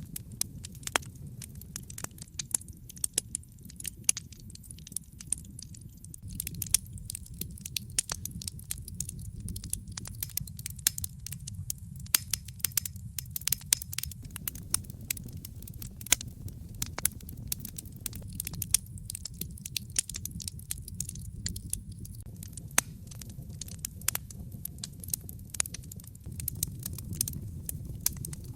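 Wood fire burning in a fireplace: a steady low rumble of the flames with many sharp, irregular pops and crackles.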